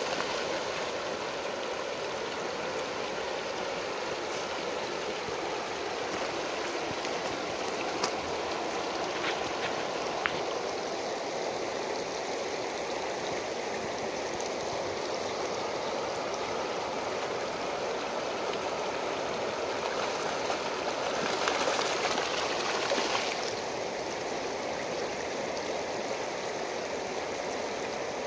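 Shallow river water rushing steadily over a cobble riffle, with a brief louder surge of noise about three-quarters of the way through.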